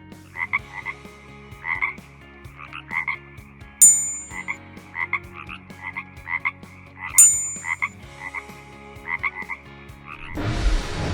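A frog calling, with short croaks repeated roughly one or two a second, some of them doubled. Two sharp clicks come about four and seven seconds in, and a rushing whoosh starts near the end.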